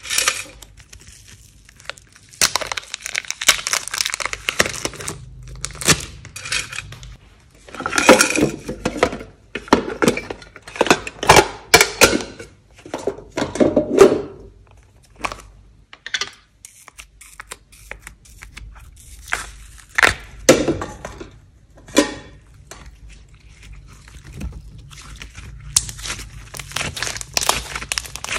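Hands handling plastic slime containers and slime: irregular clicks, knocks and rustles as the cases are opened and emptied. Near the end, pink slime is squeezed and squished between the fingers.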